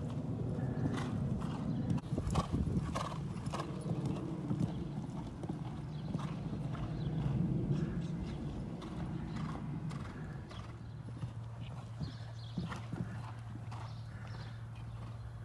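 Hoofbeats of a horse cantering over show jumps on a sand arena: dull thuds with a few sharper knocks among them. About two-thirds of the way through, the hoofbeats give way to a steady low hum.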